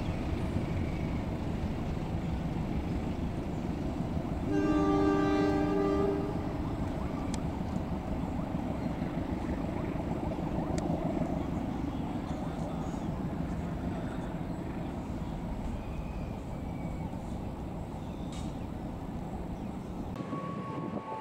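Train running past on the rails with a steady rumble, and a locomotive horn sounding one blast of about a second and a half, about four and a half seconds in. The rumble slowly dies away afterwards.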